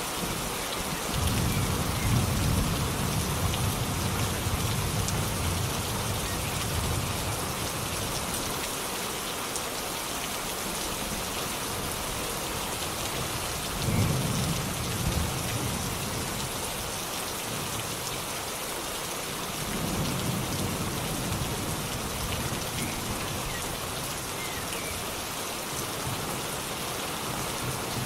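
Steady rain falling, with low rolls of thunder rumbling under it three times: early on, about halfway through, and again about two-thirds of the way in.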